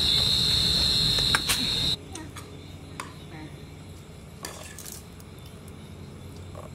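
Crickets trilling in one steady high tone, cut off suddenly after about two seconds. After that a much quieter room with a few scattered light clicks and taps.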